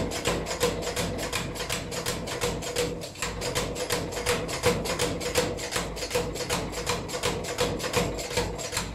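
Power hammer striking a red-hot iron bar in a fast, steady rhythm of about five blows a second, over a steady hum.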